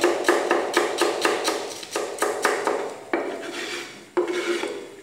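Chef's knife chopping spring onions on a plastic cutting board, about four quick strokes a second, then the blade scraping across the board twice near the end as the slices are swept off into a tray.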